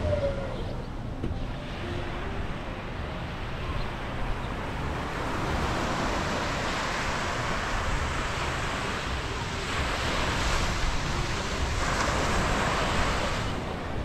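Small waves breaking and washing up on the beach, the hiss of the surf swelling louder several times, with wind rumbling on the microphone.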